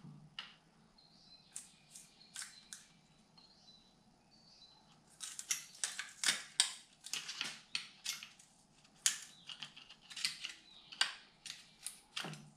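Flat-blade screwdriver clicking and scraping on the cylinder studs and old head gasket of a Honda CB550 engine as the gasket is pried loose. A few scattered clicks at first, then a busier run of quick clicks and scrapes from about five seconds in.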